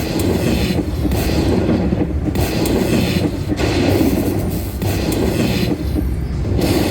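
Lightning Link slot machine sounds over a loud, steady casino-floor din, with a high-pitched layer that comes back about every second.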